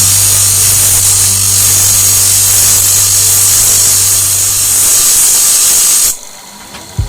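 A power tool runs steadily with a loud hiss and a low hum, then stops abruptly about six seconds in. A couple of sharp clicks follow.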